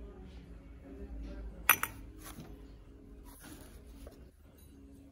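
Glazed pottery pieces clinking against each other as they are handled: a sharp double clink about a second and a half in, the loudest sound, then a lighter clink shortly after.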